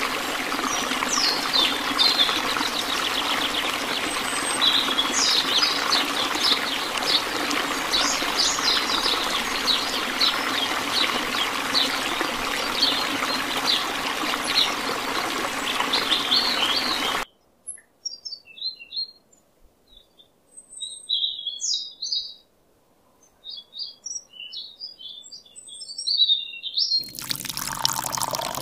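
Water splashing steadily from a miniature pump's straw outlet into a toy pond, with birds chirping over it. A little past halfway the water sound cuts off suddenly, leaving only scattered chirps, and near the end water pours from a small steel cup into a toy trough.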